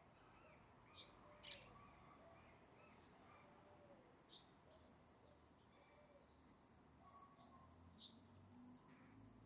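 Faint mixed birdsong: many short chirps and whistled notes from several birds, with a few sharper, louder high notes about 1, 1.5, 4.5 and 8 seconds in.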